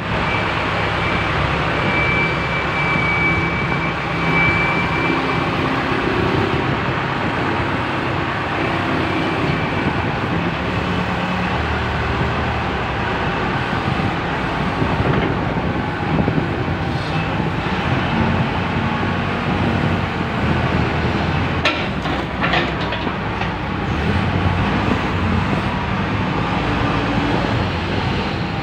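Backhoe loader's diesel engine running steadily as the machine drives through mud, with a few metallic clanks about three quarters of the way through.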